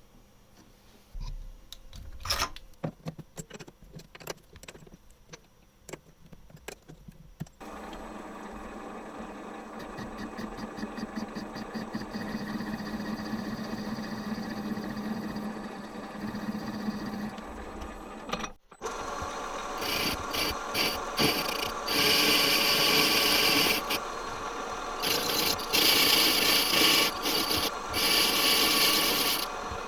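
A few scattered clicks and knocks, then a small power tool running steadily with a hum for about ten seconds. After a short break, the tool works the steel pin spanner with a louder, harsher cutting noise in spells, with a brief pause near the middle.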